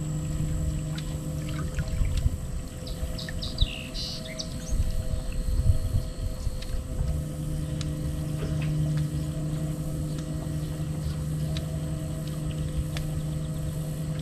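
Bow-mounted electric trolling motor of a bass boat running with a steady hum. Its low hum drops away about two seconds in and comes back about seven seconds in, as it is switched off and on. A few brief high chirps sound a few seconds in.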